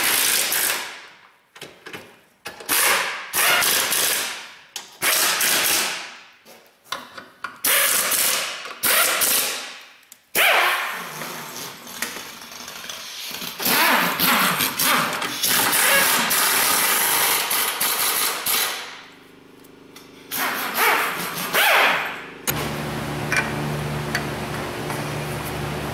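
Power ratchet running bolts in or down, in repeated short runs of about a second each, then a longer busy stretch and two more short runs. Near the end a steady machine hum comes on abruptly.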